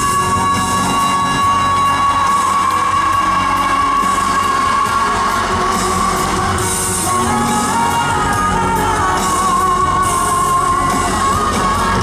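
Female pop singer belting one long held high note over a live band, then singing on with a wavering vibrato in the second half.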